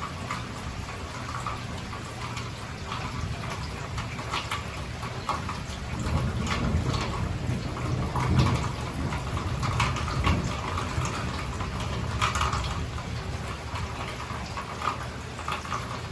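Heavy hurricane rain falling and splashing, full of small drip clicks, with a lower rush that swells in the middle and eases toward the end.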